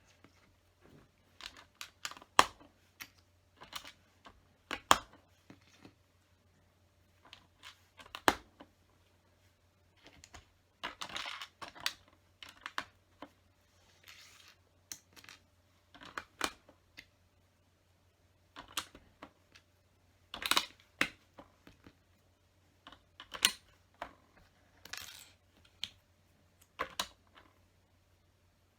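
LEGO bricks clicking and clattering as small plastic pieces are picked out and pressed together: irregular sharp clicks about every second, with a few short bursts of rustling as pieces are sorted.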